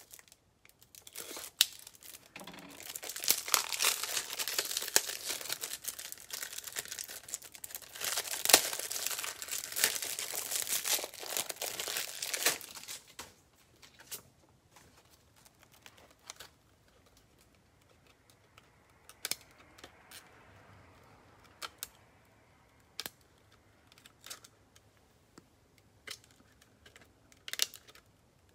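Plastic wrapping on trading card packaging crinkling and tearing for about twelve seconds as it is handled and pulled open, then scattered light clicks and taps.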